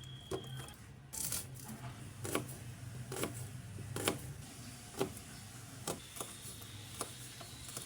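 A series of light knocks or clicks, about one a second, over a low steady hum.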